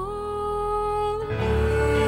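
Background music: a single held note, joined about halfway through by a fuller chord with low bass.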